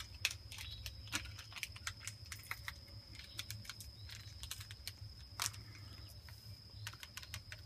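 Faint, irregular small clicks and ticks, a few louder than the rest, over a steady thin high-pitched tone and a low hum.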